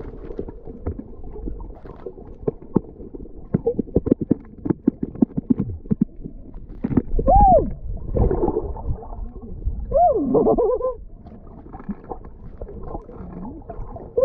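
Underwater sound picked up by a camera held under the sea while snorkelling: muffled gurgling and bubbling with many irregular clicks, and a few short rising-and-falling muffled tones near the middle and end.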